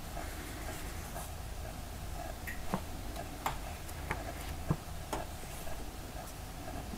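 Pages of an old hardcover book being turned by hand: a few small, sharp paper flicks and clicks through the middle, over a steady low room hum.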